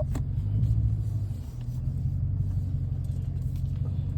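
Dodge Challenger R/T's 5.7-litre HEMI V8 running as the car drives: a steady low rumble that dips slightly about a second and a half in.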